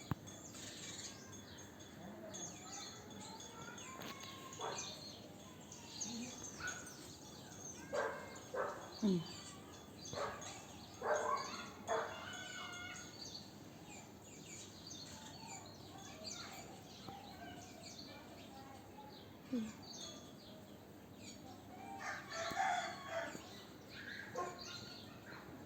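A rooster crowing several times in the background, with small birds chirping.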